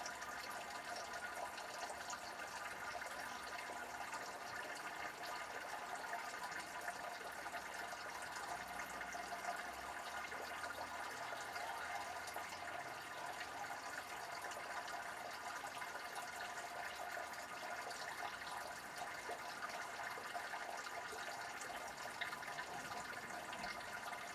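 Rain falling steadily in a thunderstorm, an even, unbroken hiss.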